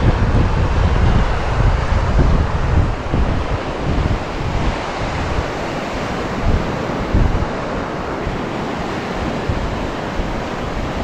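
Surf washing on a beach, with wind buffeting the microphone in gusts.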